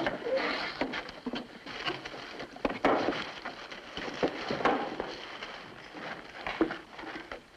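Irregular wooden knocks, creaks and scraping: boots on a wagon's floorboards and wooden barrels being moved and opened.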